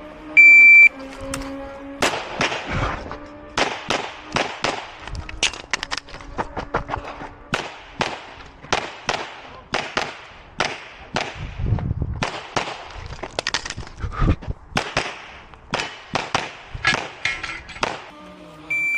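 Electronic shot-timer beep, then a long string of handgun shots, dozens of them fired in quick pairs and runs with brief pauses between. Another timer beep sounds near the end.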